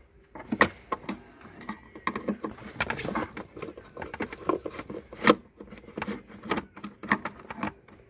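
Screwdriver unscrewing the screws from a plastic tail-lamp bulb holder: irregular small clicks, scrapes and plastic rattles, the loudest a sharp click about five seconds in.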